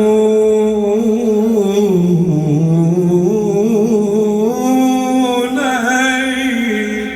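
A male voice singing a mawwal, holding one long melismatic note with quick ornamental turns; the pitch sinks about two seconds in, then climbs again before the note fades near the end.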